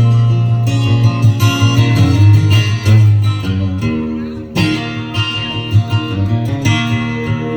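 Country song's instrumental break: acoustic guitar playing over steady low bass notes, with no singing.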